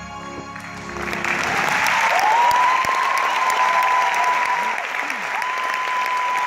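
Music fades out at the start, then a large crowd breaks into applause that swells over the first two seconds and carries on. A long, high, held cheer that slides up at its start rises above the clapping, and comes again near the end.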